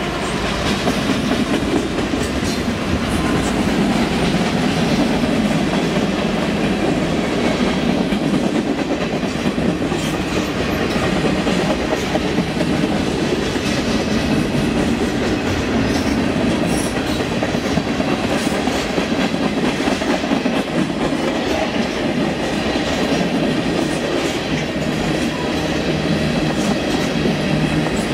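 Freight cars of a CN mixed freight train rolling past: a steady rumble of steel wheels on rail with the clickety-clack of the rail joints.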